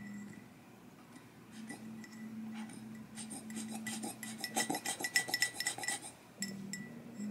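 Plastic surgical drain bulb being squeezed and emptied into a glass mason jar: small clicks and clinks against the glass, thickening into a rapid run for about three seconds in the middle.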